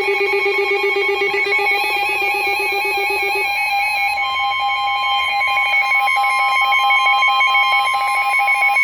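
NOAA Weather Radio emergency alert tones announcing a warning: a loud, pulsing electronic alarm. About four seconds in, a steady tone near 1 kHz joins it, the 1050 Hz warning alarm tone.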